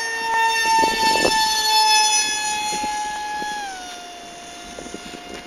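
A homemade RC model jet's motor whines steadily in flight. About three and a half seconds in its pitch glides down and it gets quieter. A few brief knocks come about a second in.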